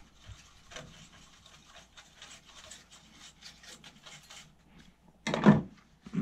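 Soft, rapid scratching and scrubbing of a small hand tool worked over a desktop computer's motherboard. About five seconds in there is one brief, much louder handling noise.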